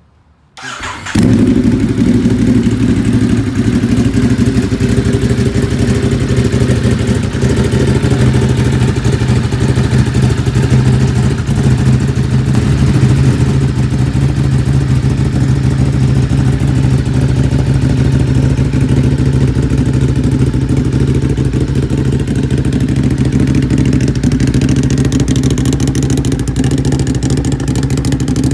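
Ducati Hypermotard SP's L-twin engine, breathing through a freshly fitted SC Project CRT exhaust, starts about a second in and then idles steadily and loudly.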